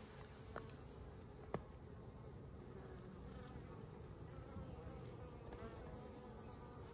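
Faint buzzing of honeybees flying around the hive entrances as foragers make their way back in. Two sharp ticks in the first two seconds, the louder about a second and a half in.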